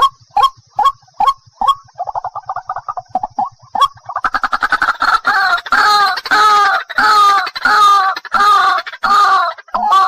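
White-breasted waterhen calling: a run of short, evenly spaced notes, then a quicker chatter, and from about four seconds in loud repeated two-part calls, about one and a half a second.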